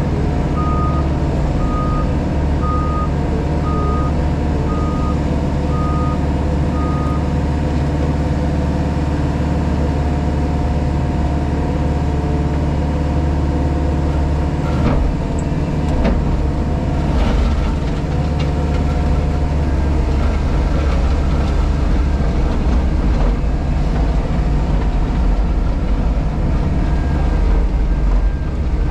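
JCB Pothole Pro's diesel engine running steadily, heard from inside the cab, with its reversing alarm beeping about once a second for the first seven seconds. A couple of sharp knocks come about halfway through.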